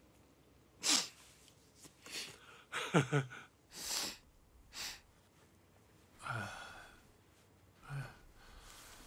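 A man weeping: about seven sharp sniffs and choked, gasping breaths in irregular bursts, several with a short voiced sob that falls in pitch.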